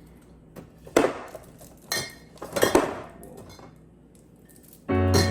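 Drinks being moved into a refrigerator door shelf: a few clinks and knocks, about one, two and nearly three seconds in. Piano music comes in near the end.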